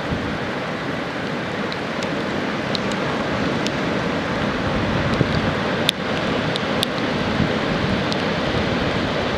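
Heavy hurricane-swell surf breaking on the beach, a steady rushing noise mixed with wind, with a few faint clicks scattered through.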